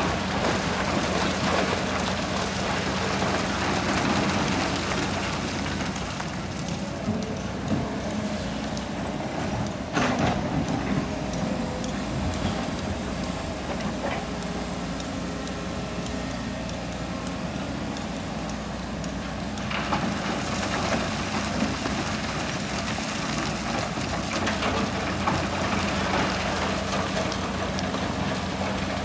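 Hitachi excavator's diesel engine running steadily, a constant low drone, while sand and gravel pour from its bucket over a steel screen into a dump truck bed with a grainy, rushing hiss. The pouring hiss thins for a stretch in the middle, and there is one sharp knock about ten seconds in.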